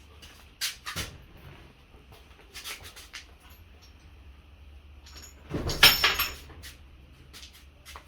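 Steel pushrods from a Chevy 350 small-block clinking as they are pulled out and handled: scattered light metallic clicks, with one louder clatter of metal on metal about six seconds in.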